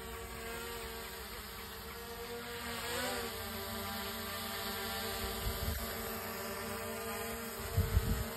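DJI Mini 4 Pro quadcopter hovering overhead, its propellers and motors giving a steady high buzz that dips and rises in pitch about three seconds in as the motors change speed. The buzz grows slightly louder, and a few low thumps come near the end.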